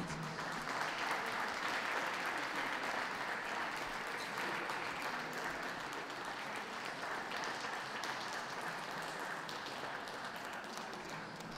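Audience applauding steadily, easing off a little toward the end.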